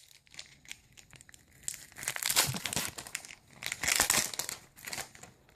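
Foil wrapper of a Magic: The Gathering booster pack crinkling and tearing as it is worked open by hand, in several bursts after a quiet start.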